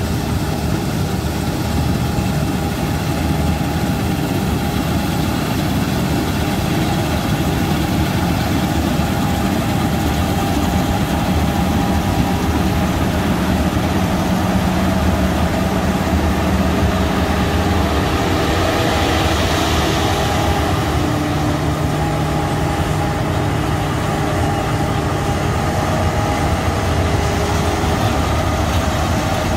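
Claas Avero 240 combine harvester running steadily while harvesting oats: the diesel engine and threshing machinery drone as the machine drives past with its header cutting.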